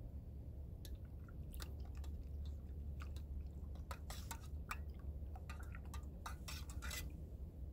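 Spoon stirring coffee in a stainless steel camp cup: light clicks and scrapes of the spoon against the cup, sparse at first and coming thick and fast in the second half.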